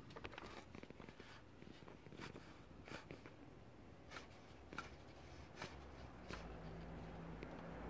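Faint, irregular clicks and rubbing as the BMW 330d's accessory-belt pulleys are turned and rocked by hand, checked for bearing play. A low steady hum comes in near the end.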